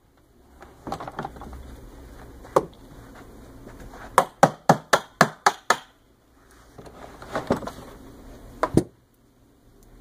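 Knocks from the Rug Doctor carpet cleaner's wheel being worked onto its axle by hand. There are a few scattered knocks early on, then a quick run of about seven sharp knocks, about five a second, a little over four seconds in, and a few more near the end.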